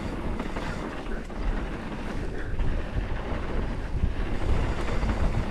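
Mountain bike riding down a dirt trail: wind buffets the helmet camera's microphone over a low rumble of the tyres, with scattered clicks and rattles from the bike.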